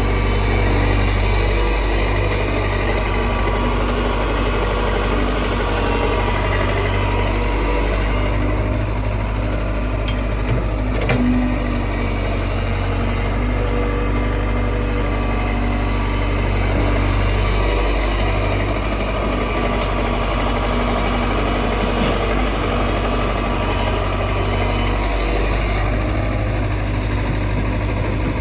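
Diesel engine of a Hitachi backhoe loader running steadily, its low note shifting a few times as the load changes, with a single sharp knock about halfway through.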